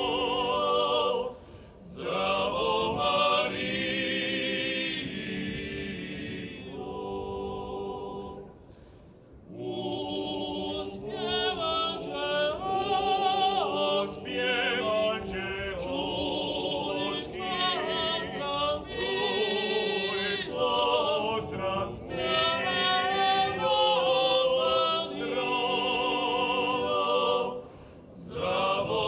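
Male klapa group singing in close harmony without instruments, several voices holding long chords and moving together, with short breaths between phrases about a second in, near the middle and near the end.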